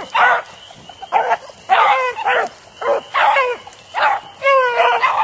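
Beagle baying at close range: a run of about eight short barks, ending with a longer, drawn-out wavering bay about four and a half seconds in.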